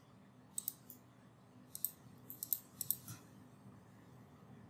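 Faint, scattered clicks of a computer mouse and keyboard, some single and some in quick pairs, while text is copied and pasted.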